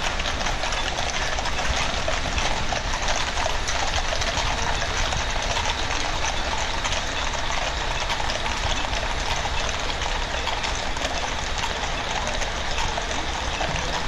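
Hooves of a large mounted police escort clattering on the street, a dense, continuous clatter of many horses' hoofbeats over a steady low rumble.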